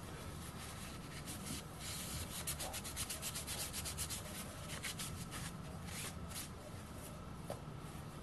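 Paper towel rubbed briskly over the aluminium workpiece and lathe chuck, wiping off chips, in a fast run of scrubbing strokes through the middle. A faint steady low hum runs underneath.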